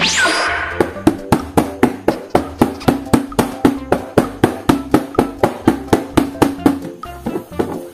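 Sound-effect track: a short swoosh, then an even run of wood-block-like ticks, about four or five a second, that stops about a second before the end.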